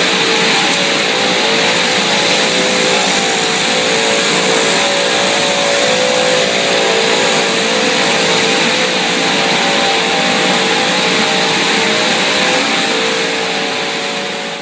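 Machinery of a breakfast-cereal production line running: a loud, steady whir with a few steady humming tones in it, fading out near the end.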